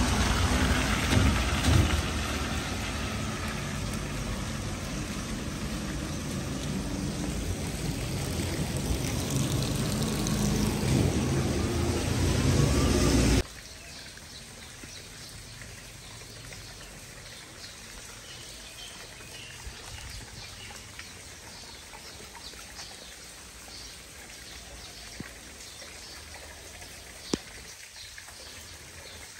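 Rain falling, loud and close with a low rumble under it for the first half. About halfway it drops abruptly to a softer, steady patter of rain with separate drops audible, and one sharp tick near the end.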